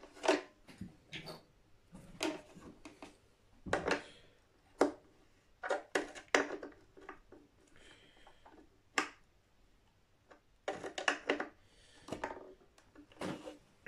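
Irregular small clicks and knocks from handling a guitar's pickup selector toggle switch and its metal nut and washers as it is fitted through the guitar top. A few louder knocks come about four seconds in and again near eleven seconds.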